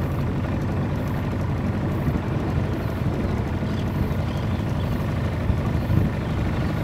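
Small boat's outboard motor running steadily under way, an even low hum over the wash of the water.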